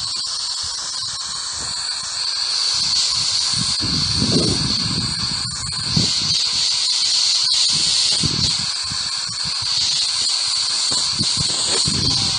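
Ghost radio (spirit box) static: a steady hiss with a shrill high tone running through it, and faint brief fragments of sound coming and going underneath.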